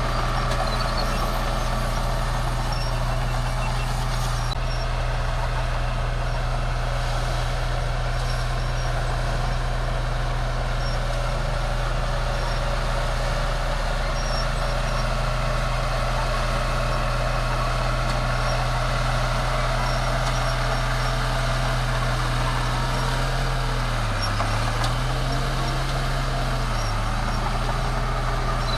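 Bulldozer's heavy diesel engine running steadily under work. Near the end the engine note dips briefly twice, then recovers.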